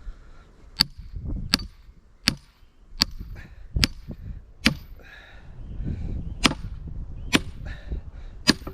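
Hammer blows on steel driven into a large wood round: nine sharp, ringing metal-on-metal strikes, about one every three-quarters of a second, with a short pause partway through.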